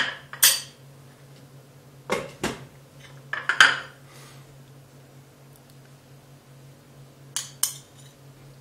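A metal spoon clinking and scraping against a glass bowl and a pan, and a glass pot lid set down on the pan, in a few short clattering bursts a second or two apart. A low steady hum runs underneath.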